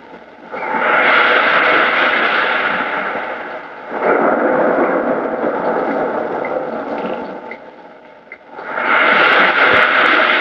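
Waves breaking on a shore: three surges of surf about four seconds apart, each rising quickly and then fading away.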